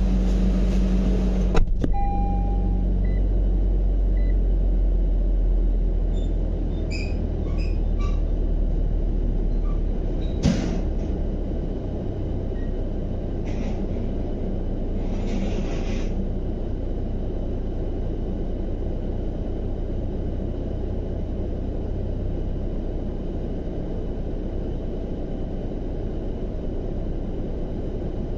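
Car engine idling, heard from inside the cabin as a steady low rumble that eases down about ten seconds in. Two sharp knocks and a few short rushing noises come as the metal gate ahead is opened.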